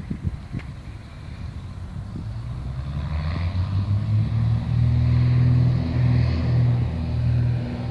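A light plane's engine and propeller at takeoff power, heard from across the airfield: a steady low drone that swells from about two seconds in and stays loud, over some wind noise on the microphone.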